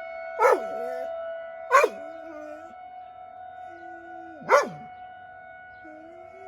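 Outdoor tornado warning siren holding a steady tone while a Labrador gives three short, sharp barks, about a second in, near two seconds and past four seconds. Quieter low howling notes come between the barks.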